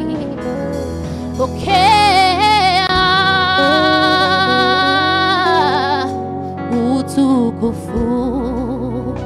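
Worship song: a solo singing voice with vibrato over steady instrumental backing, holding one long note for about four seconds near the middle.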